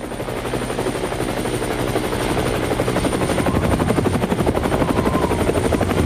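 Helicopter coming in low to land, its rotor chopping fast and growing louder over the first two seconds, with a thin steady high whine over the chop.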